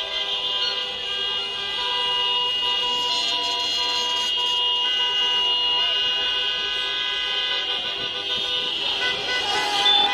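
Many car horns honking together in long, overlapping blasts at several pitches, with a louder burst near the end.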